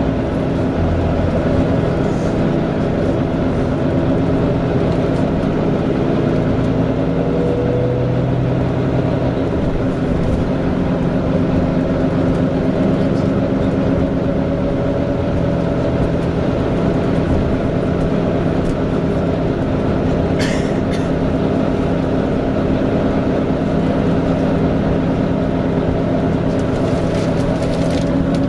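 Volvo B9TL double-decker bus's six-cylinder diesel engine running steadily, heard from inside the passenger saloon, with a slight whine from the engine cooling fan. The engine note rises briefly about eight seconds in, and there is one sharp click about twenty seconds in.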